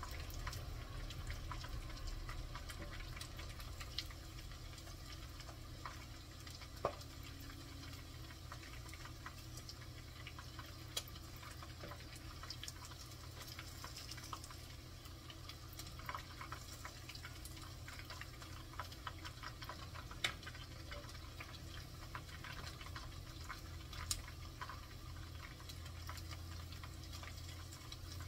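Chicken wingettes deep-frying in a pan of hot oil: a steady sizzle with frequent crackling and a handful of sharper pops.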